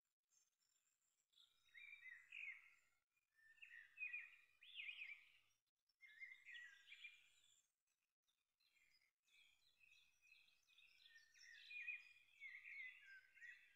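Faint songbirds chirping and twittering in short phrases of a second or two, with quiet gaps between them.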